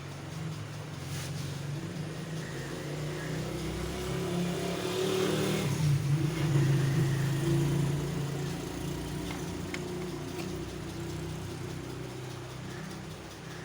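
Motor vehicle engine running nearby, growing louder to a peak about six seconds in and then fading away, as a vehicle passing by.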